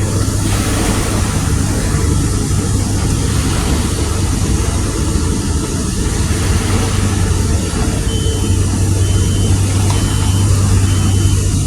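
Steady low engine rumble from heavy equipment or a vehicle. From about eight seconds in, a reversing alarm beeps about once a second over it.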